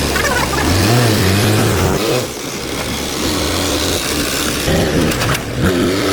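Car engine running and revving, its pitch rising and falling several times.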